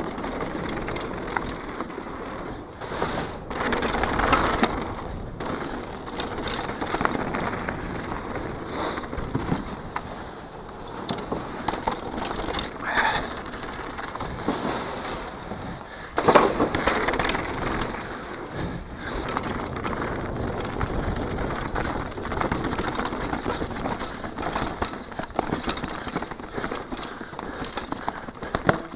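Downhill mountain bike riding fast down a dirt forest trail: tyres rolling over dirt and leaves while the bike rattles and clatters over bumps and roots, with one hard knock about sixteen seconds in.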